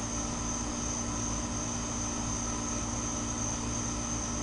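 A steady background drone: a low hum under a constant high-pitched whine, with no distinct events.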